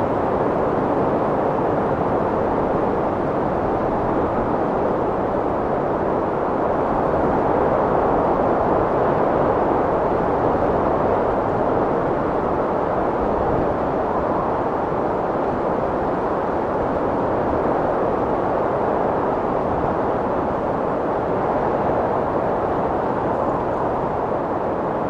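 Strong wind blowing in a steady, deep rush that swells and eases only slightly.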